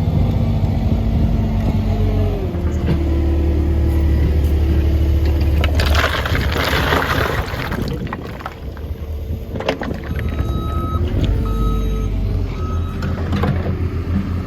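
Heavy vehicle's engine running loudly, its pitch shifting about two seconds in. A loud rushing noise lasts about two seconds near the middle, and a backup alarm beeps repeatedly near the end.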